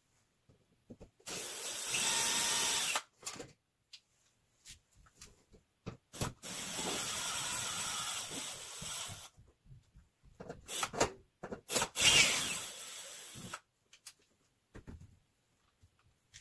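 Cordless drill/driver backing out the screws of an electrical panel cover, running in three bursts of about two to three seconds each. Short clicks come between the runs.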